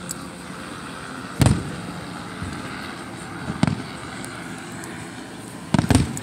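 Aerial fireworks shells bursting: a loud bang about a second and a half in, another a little past halfway, then two bangs in quick succession near the end, over steady background noise.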